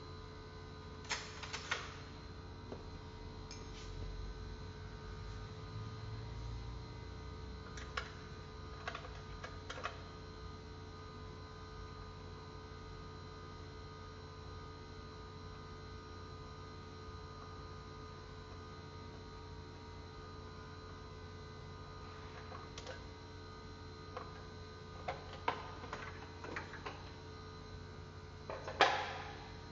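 Scattered light clicks and knocks from tools and engine parts being handled during engine disassembly, the loudest near the end, over a steady electrical hum.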